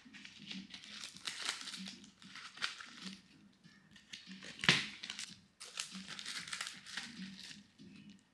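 Clear plastic packaging rustling and crinkling in short bursts as sticker sets are handled and packed, with one sharp knock about four and a half seconds in.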